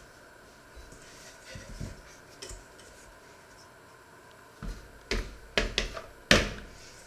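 Dough being turned out of a stainless steel mixing bowl onto a floured wooden board: a few faint handling sounds, then a quick run of knocks and thumps from the bowl and the dough over about two seconds in the second half, the loudest near the end.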